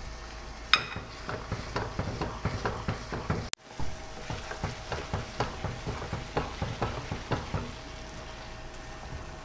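Wooden spoon stirring and scraping thick semolina halwa in a pan, quick strokes several a second over a light sizzle of the ghee, with a sharp clack about a second in. The milk has cooked off and the ghee is separating: the halwa is nearly done.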